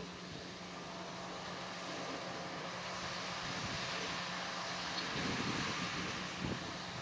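Farm machinery engine running steadily, its hum growing slowly louder. The sound cuts off suddenly at the very end.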